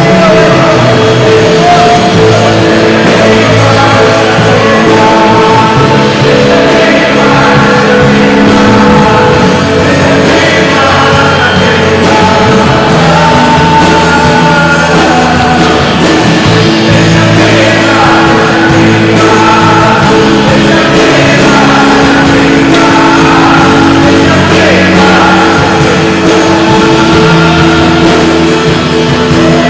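Live worship band music played loudly and steadily, with held keyboard-like chords and guitar, and singing over it.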